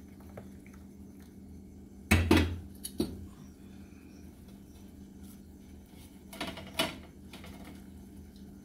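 Kitchen clatter over a low steady hum. An enamel coffee pot is set down on the stovetop with a heavy clunk about two seconds in, followed by a smaller knock. Near the end, a metal spoon clinks against a pot of beans.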